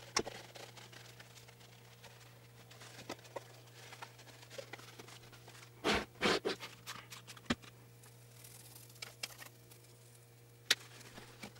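Cloth rag rubbing and scraping over the body of a vintage Atlas sewing machine, with scattered light clicks and a cluster of louder clunks about six seconds in as the machine is turned around on the table. A steady low hum runs underneath.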